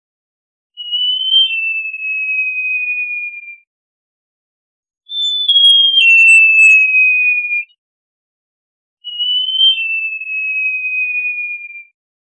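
Great jacamar singing: three long, thin whistles of about three seconds each, each opening on a short higher note, then stepping down and gliding slowly lower in pitch, with silent gaps between them.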